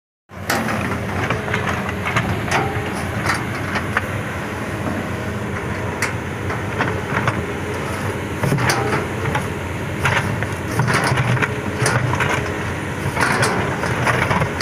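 Hitachi 200-class hydraulic excavator's diesel engine running steadily, with irregular sharp knocks and clanks throughout.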